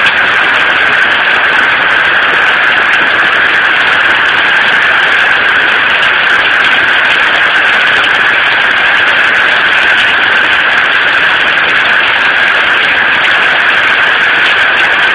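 Heavy rain pouring down in a steady, loud hiss.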